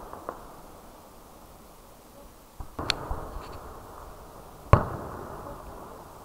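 Aerial firework shells bursting in the sky: a soft thud and a sharp bang about three seconds in, then a louder bang near five seconds, each trailing off in a lingering echo.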